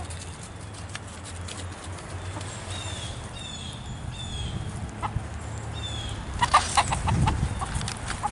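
Small flock of free-ranging backyard chickens clucking as they forage, with a short run of high, falling chirps in the middle and a burst of quick clucks near the end.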